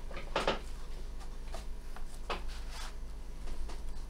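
Bench handling sounds: a few short scratches and soft taps from pencil writing on paper and the opened gauge being shifted on the table, over a steady low hum.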